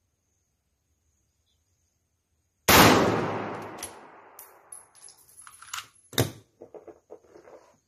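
A single shot from a CZ 527 Carbine bolt-action rifle in .223 about two and a half seconds in, with a long echoing decay. It is followed by a series of metallic clicks and a sharp clack near six seconds as the bolt is worked.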